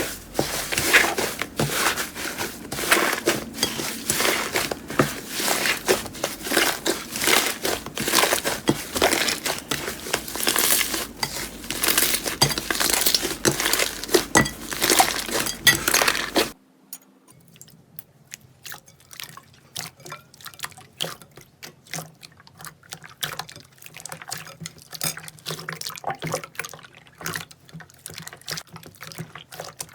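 Slime being squeezed and worked by hand: a dense run of wet clicks, pops and squelches. About halfway through it cuts off abruptly to a quieter clip of softer, sparser squishing.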